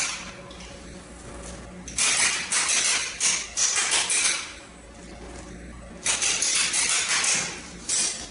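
Fine salt pouring out of a coiled copper tube with a hiss as the tube is tipped and shaken, in two bursts of about two seconds each, the first about two seconds in and the second about six seconds in. The tube is being emptied of the salt that was packed into it so it could be bent.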